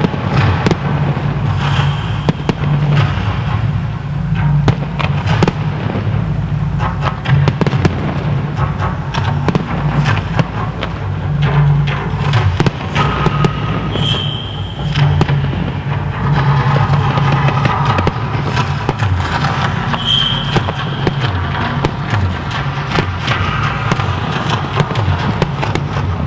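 Fireworks display: aerial shells bursting one after another in quick succession throughout.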